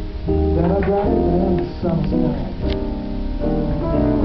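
Live small-group jazz: hollow-body electric guitar, plucked upright double bass and grand piano playing an instrumental passage between sung lines, with a walking low bass under the guitar and piano notes.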